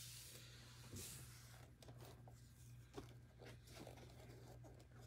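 Near silence with a low steady hum and a few faint taps and rustles from a gloved hand touching a stack of wrapped trading-card boxes.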